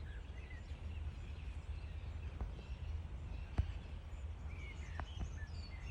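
Outdoor ambience: a steady low rumble with a few faint, short bird chirps and a handful of isolated soft clicks.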